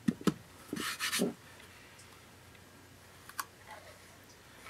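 A few light clicks and knocks from a painted wooden recipe box being handled on a tabletop, with a short scrape about a second in and one more click near the end as its lid is opened.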